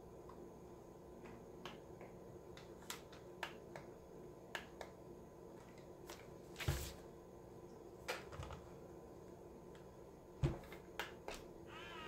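Faint scattered clicks and taps, with a louder knock about halfway through and another near the end, as AA batteries are fitted into the battery compartment of a touchless soap dispenser.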